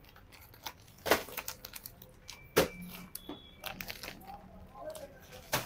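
Plastic packaging of a bagged fabric suit crinkling and rustling as it is handled, with a few sharper cracks.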